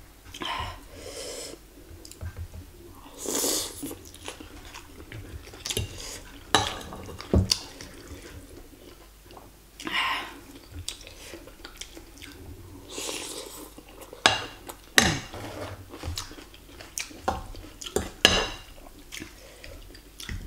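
Metal fork and spoon clinking and scraping against a ceramic bowl in many short, irregular clicks, with chewing of meatballs and noodles in between.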